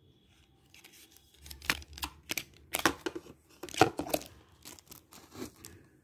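Packaging being handled: a small cardboard concealer box is opened and the stick is slid out, giving a run of sharp crackles and clicks that are loudest about halfway through.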